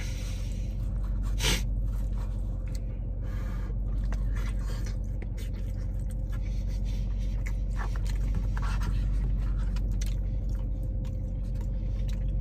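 A man chewing food while a clear plastic fork scrapes and clicks against a cardboard food box, with one sharp click about a second and a half in, over a steady low hum inside a car.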